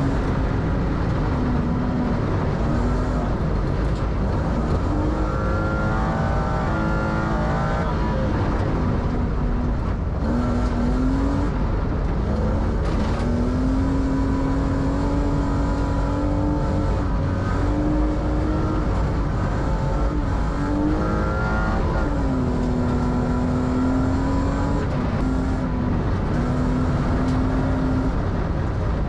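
BMW rally car's engine at full stage pace, heard from inside the car: the engine note climbs through the revs and drops back at each gear change, over a steady rumble of tyres on gravel.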